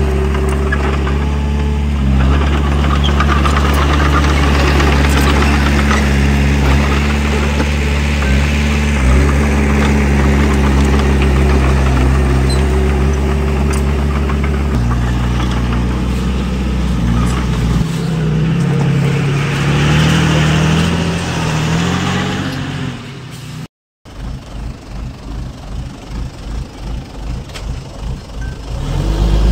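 Heavy-equipment diesel engine running steadily. About halfway through its note shifts, then briefly rises and falls. After a sudden break near the end, a lower engine sound pulses about twice a second.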